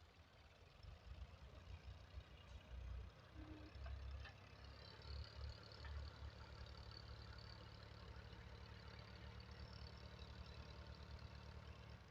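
Faint diesel engine of heavy machinery running, a low rumble that rises and falls unevenly.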